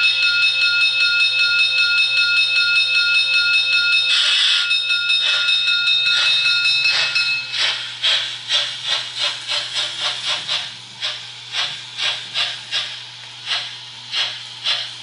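Märklin model steam locomotive's sound decoder: a steady high whine with a short blast of steam hiss about four seconds in, then rhythmic steam chuffing from about halfway, around two chuffs a second, slowing a little and getting quieter.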